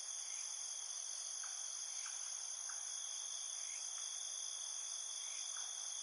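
Steady, high-pitched insect chorus, several trills sounding at once without a break, with a few faint short chirps now and then.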